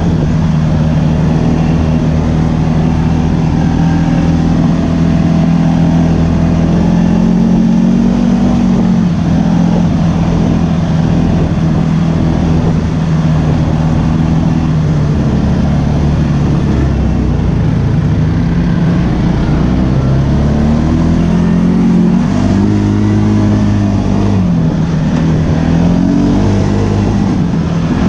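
ATV engine running through the ride, mostly steady, with its pitch dropping and rising several times in the second half as the throttle is eased off and opened again.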